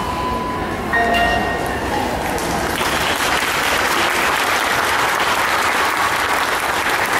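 The last notes of the music fade out about two seconds in. An audience then starts applauding, building to steady clapping by about three seconds in.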